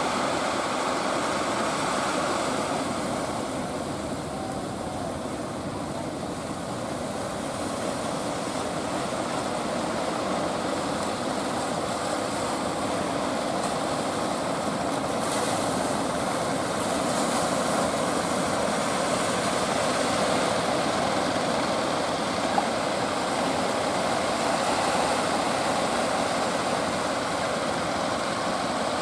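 Steady drone of the fishing boats' engines mixed with the rush of surf and breaking waves.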